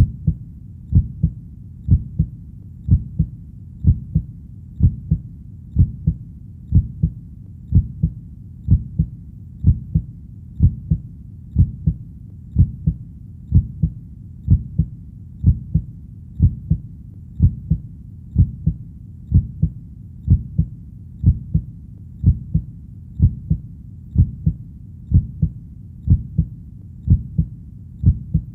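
Heartbeat, a steady double thump (lub-dub) repeating about once a second, low-pitched over a faint steady rumble.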